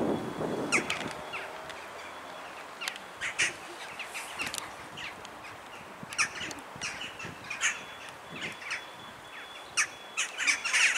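Crows calling from the trees: many short calls at irregular intervals, coming thickest near the end.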